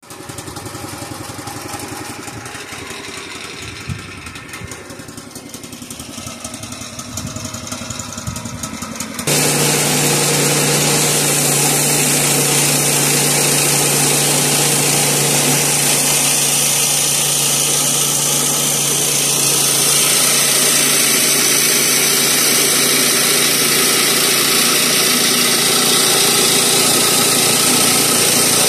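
Woodland Mills HM122 bandsaw mill with its 7 hp engine idling at first with a quick, even putter. About nine seconds in the sound jumps abruptly to a louder, steady run at full throttle as the band blade cuts through a sycamore slab.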